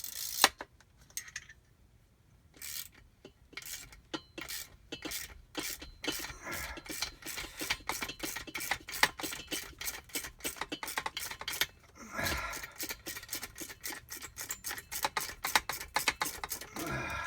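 Metal hand tools working on a jet ski's aluminium impeller pump: a long run of short, sharp metallic clicks and scrapes at about three to four a second, with one louder click just after the start.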